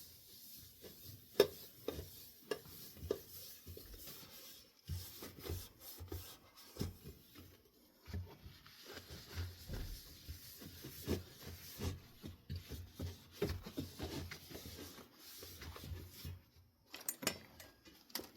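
Metal ceiling fan parts being handled and wiped down: scattered light clinks and knocks with rubbing, the sharpest click about a second and a half in.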